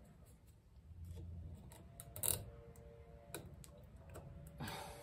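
Faint, scattered metal clicks and taps of pliers and a retaining clip against a 1968 Mustang master cylinder as the clip is worked into the bore, the loudest click a little past halfway.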